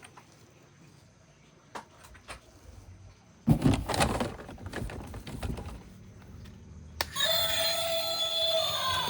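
A few faint clicks, then a loud, uneven noisy stretch beginning suddenly about three and a half seconds in, then music with steady held tones starting abruptly about seven seconds in.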